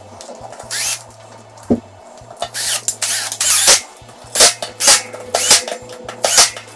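Ryobi 18V cordless drill with a Torx bit driving the six bolts of a mountain-bike disc brake rotor, whirring in repeated short bursts that come faster in the second half, the sound sped up.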